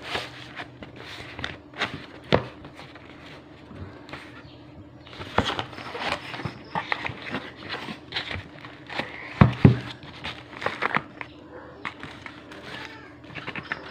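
A cardboard box being handled and opened on a table: scraping and rustling of cardboard and plastic wrapping, with scattered taps and knocks, the loudest about two seconds in and again near ten seconds.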